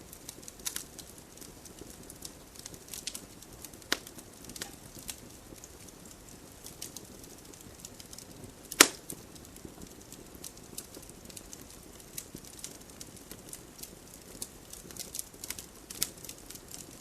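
Campfire crackling: burning wood gives off irregular sharp snaps and pops over a low steady rustle of flame, with one much louder pop about nine seconds in.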